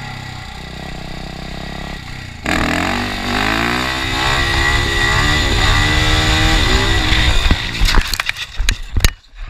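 Yamaha dirt bike engine running, then revving hard from about two and a half seconds in, its pitch rising and wavering under throttle. About eight seconds in the bike crashes: a string of sharp knocks and scraping as it goes down and slides across gravel.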